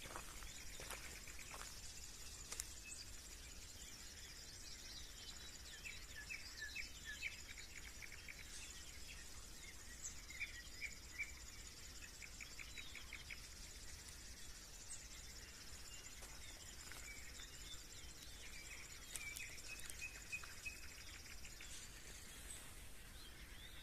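Faint early-morning chorus of birds chirping and calling in short scattered phrases, over a steady high-pitched hum of insects.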